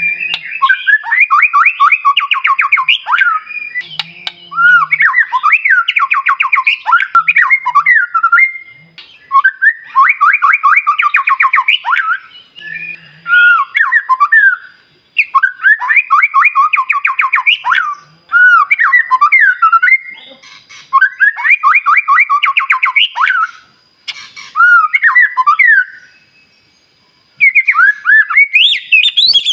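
White-rumped shama (murai batu) singing: a run of loud phrases, each one to three seconds long, made of rapid harsh trilled notes, with short pauses between phrases.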